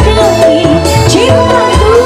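A woman singing live into a microphone over a dangdut band's accompaniment, with a steady bass and drum beat.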